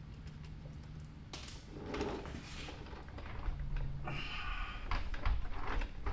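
Scattered clicks, knocks and a rasping scrape of hand work on the car's drivetrain, with a brief high metallic ring about four seconds in.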